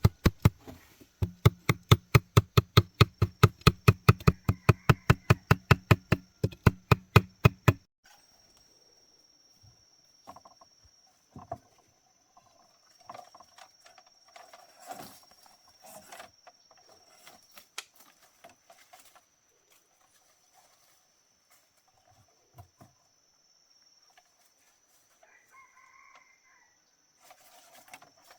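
Rapid, even knocking, about five strikes a second, loud for the first eight seconds and then stopping. After it come quieter scattered taps, chickens clucking, and a steady high thin tone.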